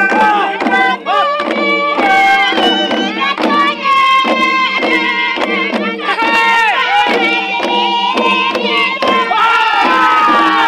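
Men's group singing of a Sia dance chant, with gliding, wavering voices, over a steady, quick beat of long wooden hand drums.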